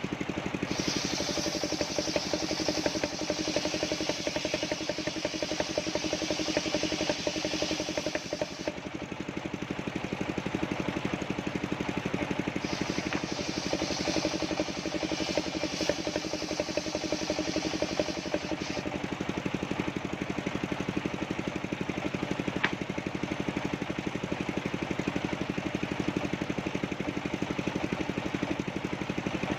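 Engine-driven portable sawmill running steadily. Twice, a high hissing rasp rises over the engine for about six to eight seconds, as the saw blade cuts through soft coconut-palm wood.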